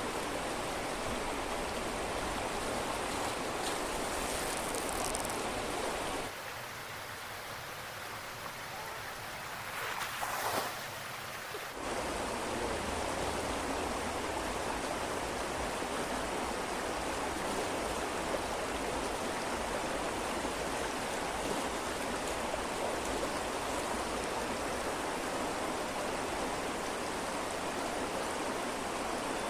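Waterfall water rushing steadily. About six seconds in, it turns quieter and thinner for roughly six seconds, then comes back full.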